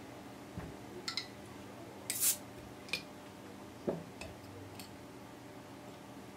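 Flat metal bottle opener prying the crown cap off a bottle of carbonated IPA: a couple of small metal clicks, then a short hiss as the cap comes off about two seconds in. A few light clicks and a soft knock follow as the cap and opener are put down and the bottle set on the table.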